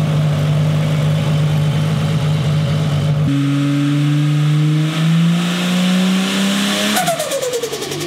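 Holden VL Commodore Turbo's RB30ET straight-six idling, then revved and held with the pitch climbing slowly. About seven seconds in the throttle snaps shut: the revs fall away and the turbo makes a rapid fluttering chatter out of an open 3-inch straight alloy dose pipe, a small dose (compressor surge).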